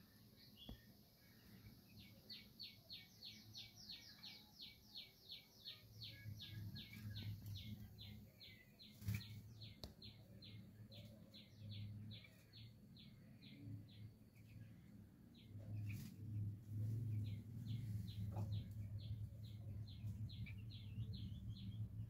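Sooty-headed bulbul calling a long run of short, high, downward-slurred chirps, about three a second, with a brief pause partway through. A low rumble grows louder in the second half, and there are a couple of sharp clicks.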